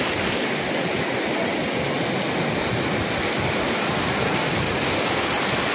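Sea waves breaking and washing up the shallows: a steady rushing surf.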